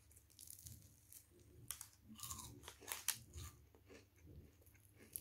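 Crisp batter on a deep-fried Mars bar crackling and crunching in a string of short, faint crackles as it is pulled apart by hand.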